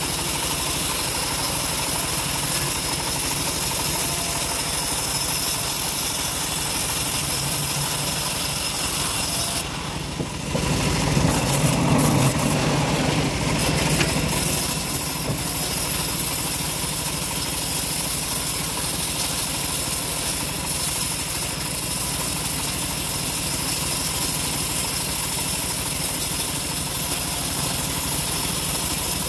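Homemade sawmill bandsaw running steadily, its engine-driven blade ripping a log lengthwise. About ten seconds in the sound grows louder and lower for a few seconds, then settles back to the steady drone.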